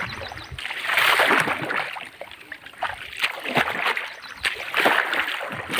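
Pond water splashing and sloshing around a person wading through it, in irregular surges a second or two apart.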